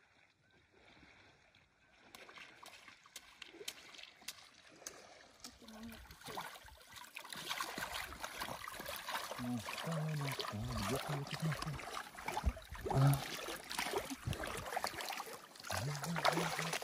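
Water splashing and trickling off a fishing net with floats as it is hauled out of the water. It starts about two seconds in, full of small crackles, and builds toward the end.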